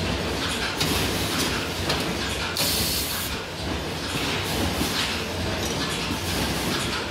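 Booklet-making line (TB flex S 204 automatic booklet maker feeding a palamides gamma502pro delivery) running steadily, processing stitched A5 brochures. Continuous machine clatter with short bursts of hiss, the loudest about three seconds in.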